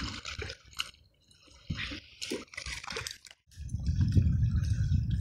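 Wooden paddle splashing and dipping in shallow water in scattered strokes. About three and a half seconds in, the sound cuts out and is replaced by a loud, steady low rumble.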